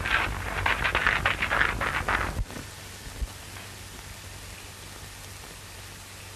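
Footsteps crunching on gravel for about two and a half seconds, then cut off abruptly. After that only the steady hiss of an old film soundtrack remains.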